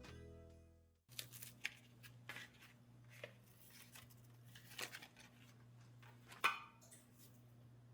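Background music ending within the first second, then quiet room tone with a low hum and light scattered rustling and clicks of things being handled, and one short sharp sound about six and a half seconds in.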